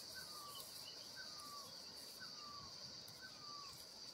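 Faint steady high-pitched drone of insects, with a short falling call repeating about once a second.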